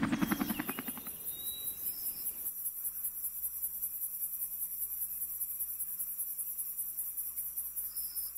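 Insects chirring in a steady, rapid, high-pitched pulse, cricket-like. In the first second a helicopter's rotor beat fades out.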